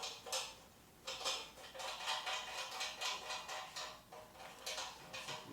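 Mechanical handling noise from a cantilever patio umbrella's pole and base: a quick run of small clicks and rattles as parts are worked loose, in the lead-up to unscrewing the base's locking knobs.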